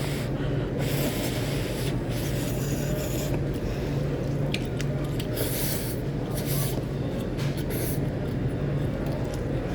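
Eating at close range: short hissy slurps of saucy noodles, with a few light utensil clicks on a bowl about halfway through, over a steady low hum.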